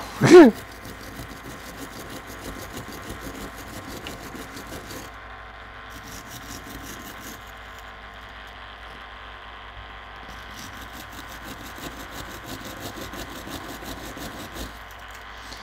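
Steel wire hand brush scrubbing a metal lathe part in quick scratchy strokes, breaking through paint softened by stripper; the brushing pauses for a few seconds midway, over a steady low hum.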